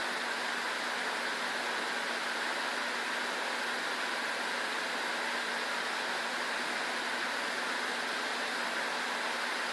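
Steady rushing noise of a wall air conditioner running, with a faint even hum.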